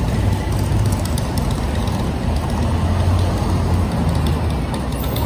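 Steady low mechanical rumble of the Roosevelt Island aerial tramway cabin moving on its cables, with a faint rattle of machinery.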